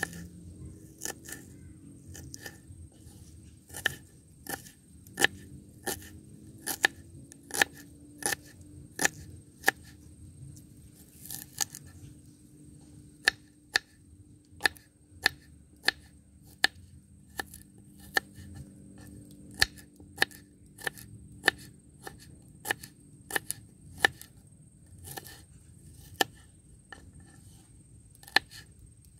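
Kitchen knife slicing garlic cloves on a wooden cutting board. The blade taps the board in sharp, even cuts, about one a second.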